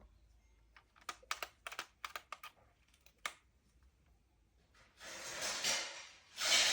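Handling noises from unboxing a toy: a quick run of sharp clicks and taps, then two longer rustling sounds near the end.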